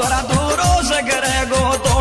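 Music with a steady beat of deep drum hits, each dropping in pitch, under a wavering melody line.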